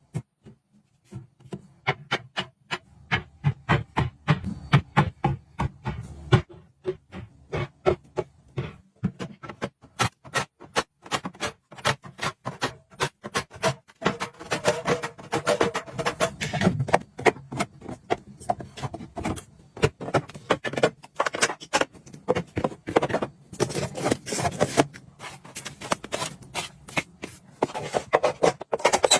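Quick taps, clicks and knocks of small objects being handled and set down, several a second, with a little rubbing.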